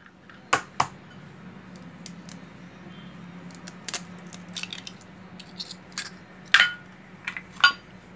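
An egg being cracked on the rim of a stainless steel mixing bowl, with shells clinking into a glass dish: a few sharp separate clicks, the loudest cluster near the end.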